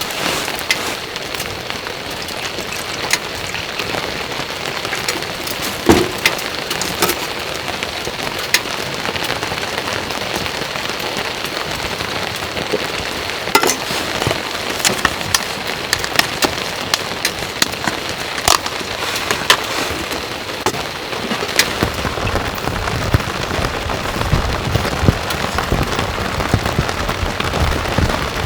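Heavy rain falling steadily, with frequent sharp taps of large drops landing close by. A low rumble joins in about three-quarters of the way through.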